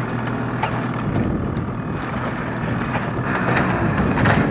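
Ski-Doo snowmobile engine running as the sled is backed down aluminium loading ramps, getting louder near the end, with a few sharp clicks and wind on the microphone.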